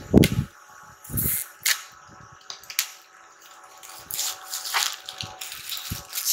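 Clear plastic shrink-wrap crinkling and tearing as it is picked at and peeled off a bamboo cutting board, with two dull knocks of the board being handled near the start and about a second in.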